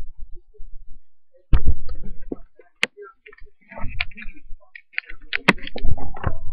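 Handling noise from a camera being moved: irregular clicks and knocks, with a dull thump about a second and a half in and another near the end.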